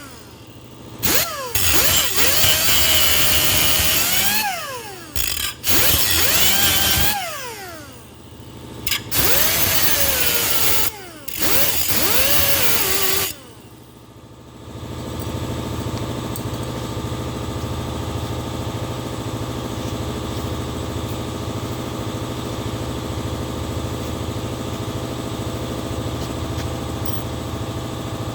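Cutoff wheel tool run in a series of short bursts, its pitch rising as it spins up and falling as it coasts down, cutting off a threaded plug fitted in a cast-iron engine block's bolt hole. About halfway through the bursts stop and a steady machine hum takes over.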